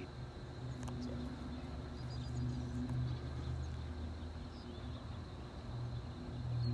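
Low, steady engine hum that swells and fades a little, with a faint click about a second in.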